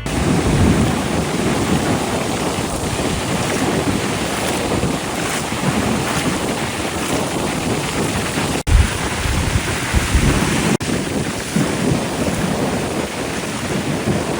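Ocean surf breaking and washing up the beach, with wind buffeting the microphone. The sound drops out for an instant twice, about two-thirds of the way through.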